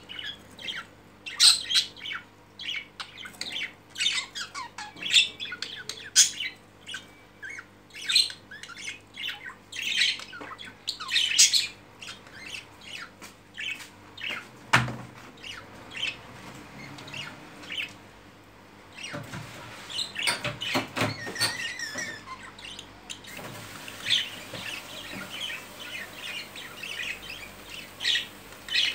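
Caged budgerigars chirping and squawking in a rapid run of short, high calls, with a single sharp knock about halfway through.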